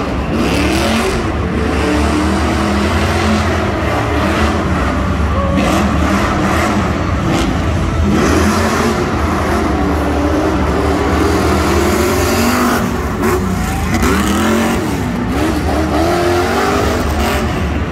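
Lifted off-road pickup truck's engine revving up and down over and over as it is driven hard around a dirt track, over a steady low drone.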